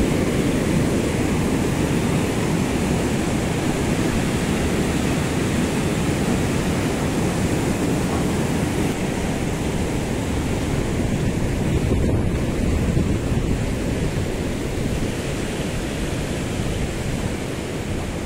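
Steady rush of a fast river's white-water rapids, mixed with wind rumbling on the microphone, easing a little near the end.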